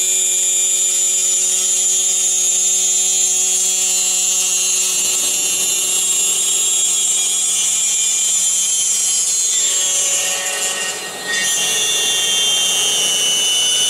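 Spindle of an aluminium-profile CNC machining centre running with a loud, high steady whine. The whine drops in pitch and loudness about ten seconds in, then returns a second later.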